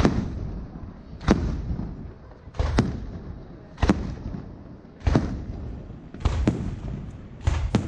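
Aerial firework shells bursting overhead: about seven sharp bangs at a fairly even pace, roughly one every second and a quarter, each trailing off in an echo.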